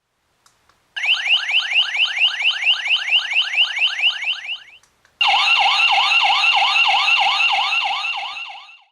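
Wireless entry chime receiver sounding two electronic siren-type alarm tones. First comes a fast repeating rising whoop, about four or five a second. After a short break comes a different warbling tone of about three swoops a second, which fades out near the end. Two faint clicks come just before the first tone.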